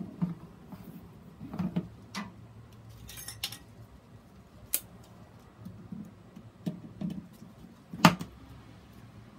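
Hard plastic grid mounting board clicking and knocking as gloved hands shift it over the moss ball, with a brief rustle about three seconds in. One loud, sharp click of hand cutters near the end.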